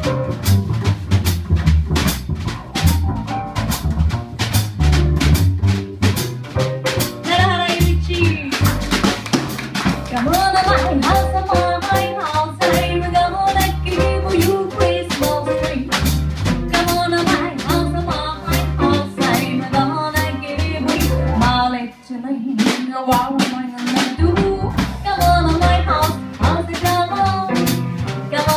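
Live jazz combo: plucked upright bass, piano and a Pearl drum kit with steady cymbal and drum strikes, joined partway through by a woman singing into a microphone.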